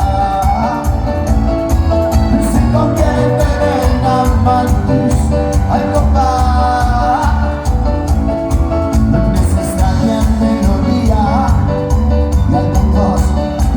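A band playing Latin dance music with a steady, even beat under a melodic lead line.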